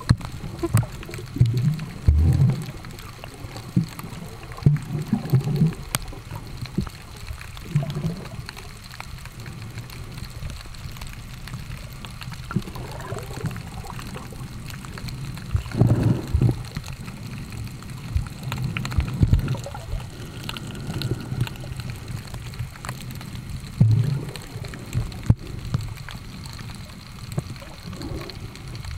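Muffled underwater water noise picked up by a submerged camera: a steady low rumble with irregular swishes and thumps every few seconds.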